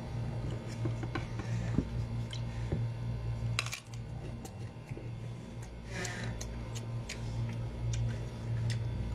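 Eating and table noises: light clicks and knocks of a ceramic bowl and plate while small limes are squeezed over the bowl, with a short crunchy chewing or squelching sound about six seconds in. A steady low hum runs underneath.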